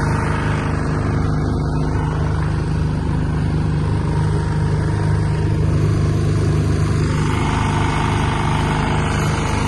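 A car driving: the engine and road noise make a steady, unbroken drone.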